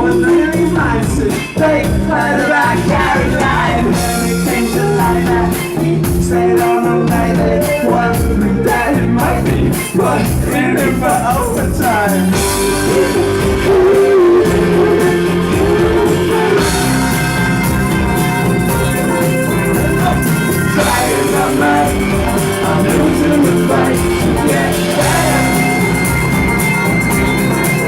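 Rock band playing live, with a steady drum beat and sung vocals. About twelve seconds in, the band moves into a fuller, louder-textured section with a cymbal wash over it.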